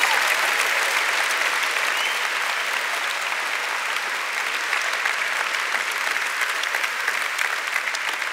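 Large audience applauding, a dense wash of many hand claps, strongest at the start and slowly easing off.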